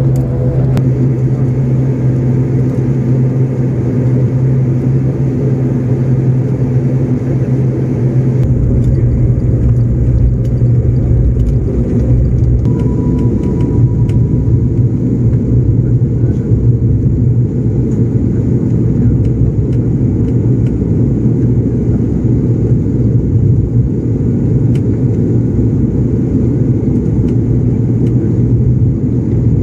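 Turboprop airliner's engines and propellers at takeoff and climb power, heard inside the cabin: a loud, steady drone with a strong low hum. The low rumble gets heavier about eight seconds in.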